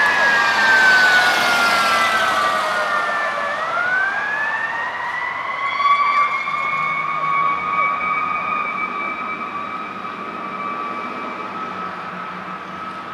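Fire apparatus siren wailing: its pitch falls slowly for about three and a half seconds, then sweeps back up and holds steady. It fades as the vehicles drive away.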